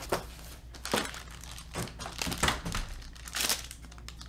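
Black foil trading-card pack wrapper crinkling and crackling in short, irregular bursts as it is opened by hand and the card is worked out.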